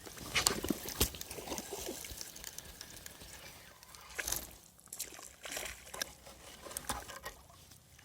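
Water splashing and sloshing in irregular bursts, the loudest splashes about half a second and a second in.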